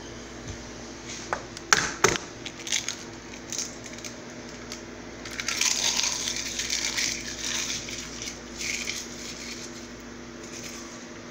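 A raw egg cracked against a stainless steel bowl gives a few sharp cracks about two seconds in. Then the eggshell is crushed by hand into small fragments, with a crackling spell of a couple of seconds near the middle.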